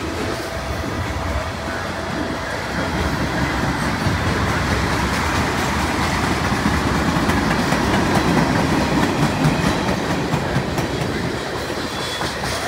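Freight train's covered hopper cars and tank cars rolling past, steel wheels running on the rails in a steady rumble that swells a little in the middle.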